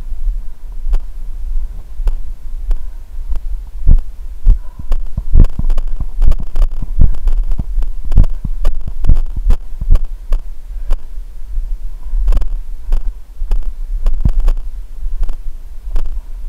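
A runner's footfalls on dirt mounds, heard as thumps through a body-worn camera at about two to three a second, heaviest in the middle stretch, over a steady low rumble.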